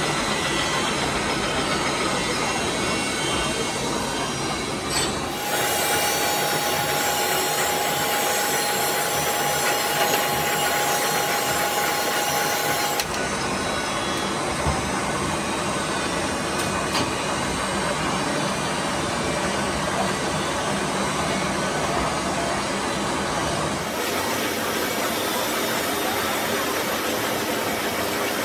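Metal lathe turning a steel gear blank, the cutting tool shaving the spinning disc with a continuous scraping, grinding noise over the machine's running. A steady whistling tone rides on it from about five seconds in to about thirteen, and the sound shifts abruptly a few times.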